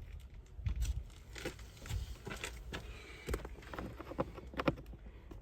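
Plastic trim tabs being pried loose with a flathead screwdriver: a run of irregular small clicks, knocks and scrapes.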